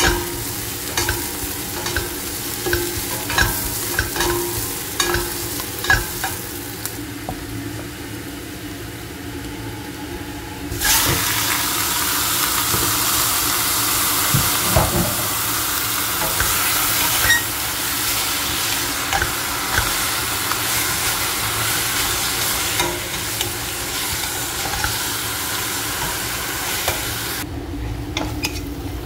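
Chopped onions sizzling in a stainless steel pot, stirred with a spatula that clicks and scrapes against the metal. About eleven seconds in the sizzle jumps suddenly louder as raw beef cubes go into the hot pot, and the frying goes on while the meat is stirred.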